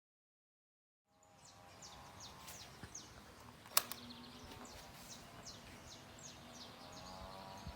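Small birds chirping in quick, repeated short downward-sweeping notes over a faint steady hum, starting about a second in after dead silence. There is one sharp click about four seconds in.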